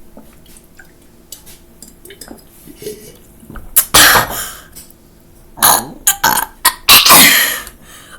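A person burping loudly three times, about four seconds in, again near six seconds, and a longer one near the end.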